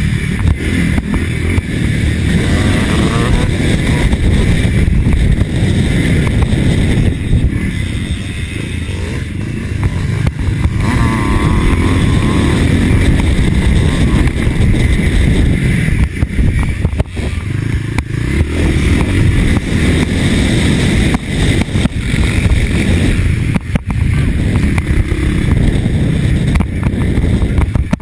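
Motocross motorcycle engine, a 1983 Husqvarna TC 500, running hard under load. The throttle is opened and closed again and again, so the engine note keeps rising and falling, with a few brief cuts.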